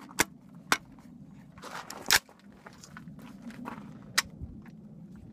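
Metallic clicks and clacks of a Catamount Fury II AK-pattern 12-gauge shotgun being readied: its box magazine of slugs seated and the receiver handled. A few light clicks, with one sharp clack about two seconds in and another about four seconds in.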